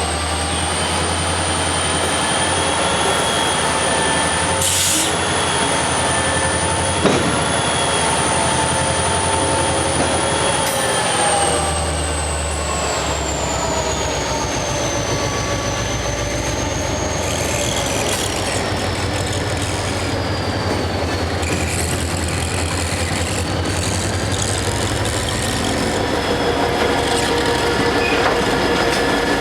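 EMD GP20 diesel locomotive running, its 16-cylinder turbocharged engine giving a steady low drone with a high whine that drifts lower in pitch from about ten seconds in. A single sharp knock comes about seven seconds in.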